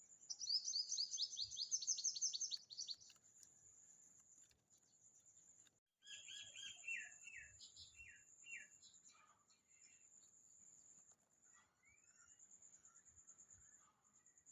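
Small birds singing: a fast, high trill in the first three seconds, then a run of falling whistled notes from about six to nine seconds in. Under it, an insect keeps up a steady, high pulsing chirr.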